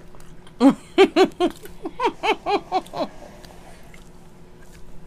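A person laughing close to the microphone: a quick run of about nine short pitched 'ha' sounds, about four a second, dying away about three seconds in.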